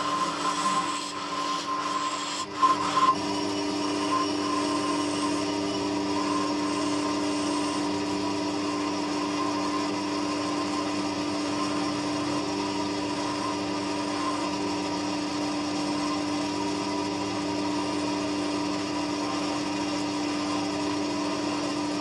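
Wood lathe running steadily while a turning chisel scrapes and cuts along a spinning bird cherry spindle, the cutting noise over the lathe's motor hum. A few sharp knocks come about two and a half to three seconds in.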